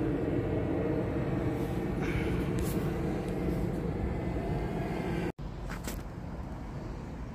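Steady low outdoor rumble typical of distant city traffic, with a few light clicks. The sound drops out for an instant about five seconds in, then the rumble carries on a little quieter.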